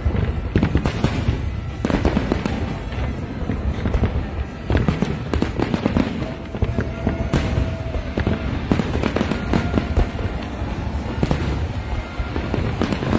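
Aerial fireworks display: a dense, continuous run of shell bursts and bangs, with music playing underneath.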